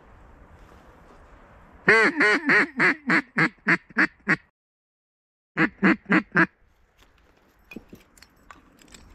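Duck call blown in a hen-mallard quacking sequence: a run of about nine loud quacks that fade as they go, a sudden dead-silent gap of about a second, then four more quacks.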